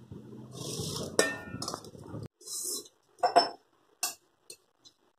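Stainless-steel bowls and a steel tumbler being handled, knocking and clinking against each other. One strike about a second in rings on briefly, and a few short separate clinks follow, the loudest a little after halfway.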